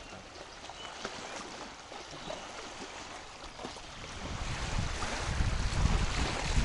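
Wind and choppy water on a stormy reservoir. About four seconds in, a gust starts buffeting the microphone with a low rumble that grows louder.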